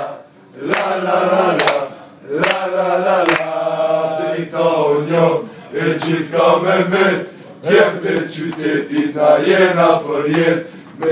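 Men's voices singing an Albanian football supporters' song together, chant-like with long held notes. Sharp knocks keep a beat in the first few seconds.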